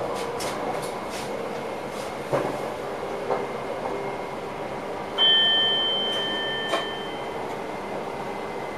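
A train running, heard from inside the driver's cab: steady running noise with scattered clicks and rattles. A little after halfway, a two-tone chime in the cab sounds once and fades over a second or two.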